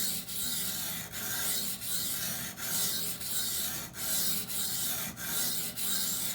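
A knife's 20CV steel edge being stroked back and forth on a soaked, very coarse 220-grit Norton water stone, a gritty scraping with each pass. The strokes come about one and a half a second.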